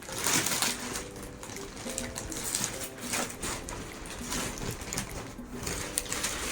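Polythene wrapping of a vacuum-packed mattress rustling and crinkling in irregular bursts as it is handled and pulled off.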